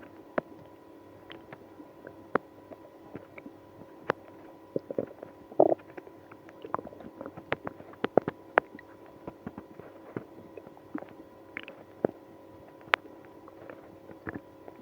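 Stomach and bowel gurgling in someone with IBS after drinking milk and prune juice: a rapid, irregular run of short pops and gurgles, with the loudest gurgle about six seconds in.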